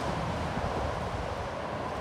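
Electric commuter train running across a steel railway bridge, a distant rumble slowly fading as it moves away, with wind buffeting the microphone.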